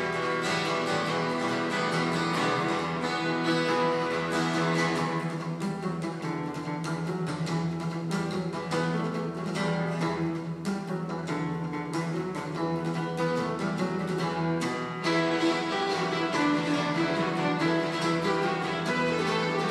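Acoustic guitar strummed in a steady rhythm over a sustained low bowed-string drone from a cello. Violins come in about fifteen seconds in and the music gets louder.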